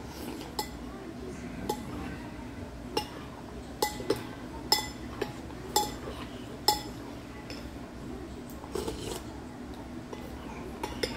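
Eating utensils clinking against a bowl: a string of sharp, ringing clinks, about eight in the first seven seconds, then a few softer ones near the end, over a steady low background din.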